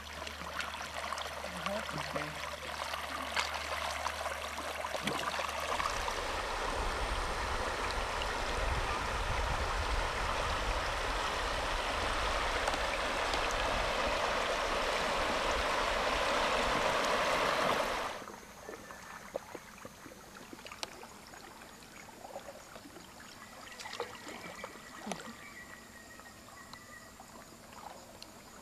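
Steady rush of moving water, with a low rumble joining in about a fifth of the way through; it cuts off abruptly about two-thirds of the way in, leaving a much quieter stretch with faint scattered splashes and clicks.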